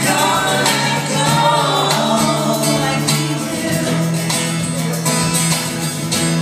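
Live acoustic band playing a song: a woman sings into a microphone over acoustic guitar, with steady percussion hits.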